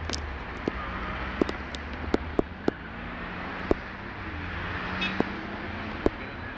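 Street traffic noise: a steady low engine hum and hiss, broken by scattered sharp clicks every second or so.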